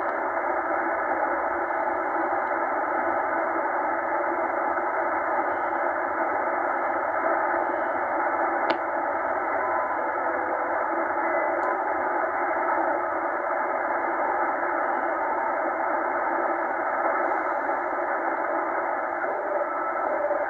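Shortwave band static hissing from a Tecsun H-501X portable receiver's speaker in upper-sideband mode as it is tuned slowly up through the 4 MHz band; the hiss is narrow and muffled, with nothing above a fairly low pitch. One short click about nine seconds in.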